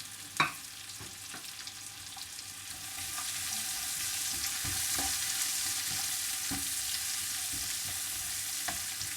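Chopped onion and broken dried red chillies sizzling in hot oil in a pan while being stirred, with scattered knocks of the stirring utensil against the pan. A sharp, loud knock comes about half a second in, and the sizzle grows louder about three seconds in.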